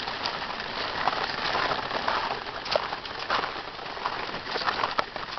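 Footsteps crunching on a gravel path: a continuous scatter of small irregular crackles and clicks as the stones shift underfoot.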